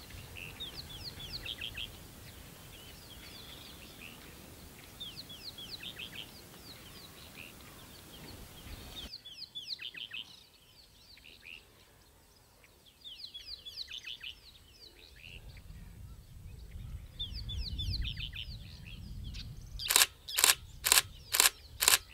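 A bird sings repeated short phrases of quick, falling chirps. A low rumble swells briefly, then near the end a camera shutter fires in a rapid burst of loud clicks, about two or three a second.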